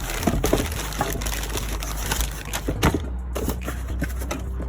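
Scattered light clicks, knocks and crinkles of parts and packaging being handled, over a steady low hum.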